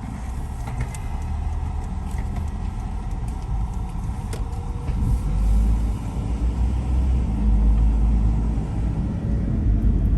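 A car driving along a city street, heard from inside: a steady low rumble of engine and road noise that grows louder about halfway through, with a couple of faint clicks.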